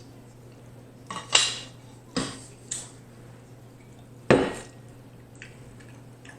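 Several sharp knocks and clatters of tableware being handled at the table, the loudest about four seconds in.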